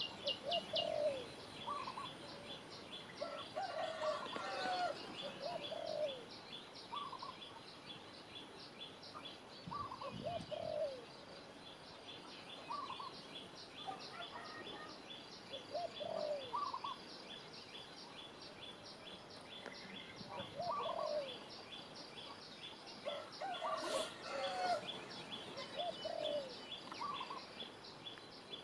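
Birds calling outdoors: a lower, falling two-note call repeats about every two seconds, over a steady run of short, high chirps at about three a second.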